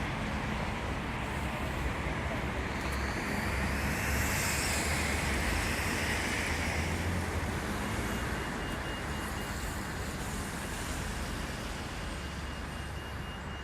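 Excavator's diesel engine running steadily, with a hissing rush that swells and fades about halfway through the first half. A faint steady high whine joins a little past the middle.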